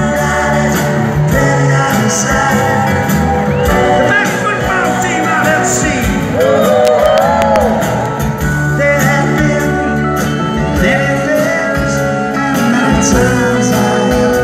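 Live band music with singing, played loud over an arena's sound system and recorded from the audience; strings and acoustic guitars are on stage.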